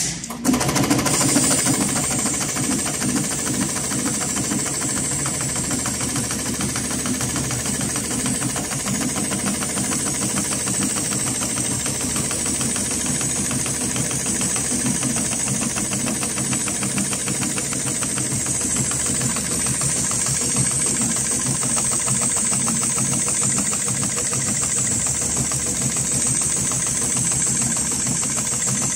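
HighTex 7273CNC-5020 automatic heavy-duty pattern sewing machine stitching thick tie-down strap webbing. It starts up abruptly, then runs fast and steady with a rapid needle clatter and a steady high-pitched hiss over it.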